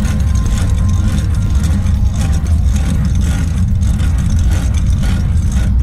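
Semi-truck's diesel engine running with a steady low rumble.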